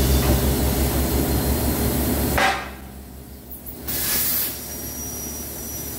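Industrial CNC plasma cutting table at work: a steady hum and hiss from the torch and its air supply that cuts off sharply about two and a half seconds in. About four seconds in comes a short loud burst of hissing as the torch cuts again, then a fainter steady hiss.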